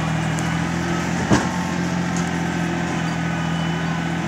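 An engine running steadily at constant speed, a low, even hum. A single knock comes about a second in.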